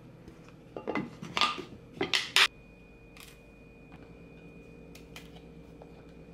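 Kitchenware being handled: a quick run of knocks and clinks in the first two and a half seconds, the last one the loudest, then a few faint ticks.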